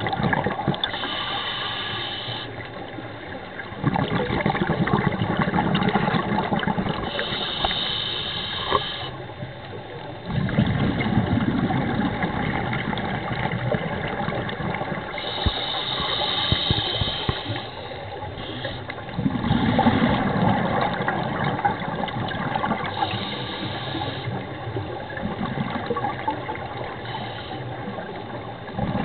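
Scuba diver breathing through a regulator underwater: a short hissing inhale, then a long rush of exhaled bubbles, repeated in a slow cycle of about five breaths.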